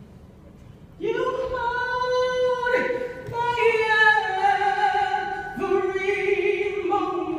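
A woman singing a gospel song solo and unaccompanied, starting about a second in with long held notes that slide between pitches.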